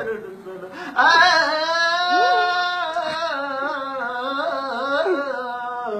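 A man singing one long wordless note that wavers up and down, starting about a second in, with a hand slap on a cardboard box near the start.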